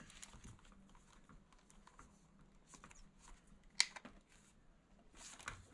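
Faint small plastic clicks and rustling from hands working headset wires and a speaker into a hard hat's plastic earmuff cup. One sharper click comes a little under four seconds in, and a brief rustle comes near the end.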